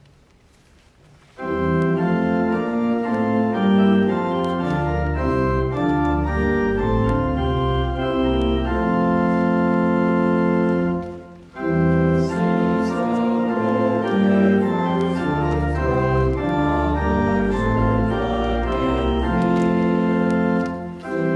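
Church pipe organ playing held chords, starting about a second and a half in, in two phrases with a brief break in the middle.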